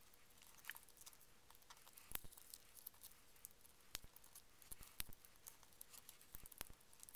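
Faint, scattered crinkles and ticks of a square sheet of paper being folded and creased by hand.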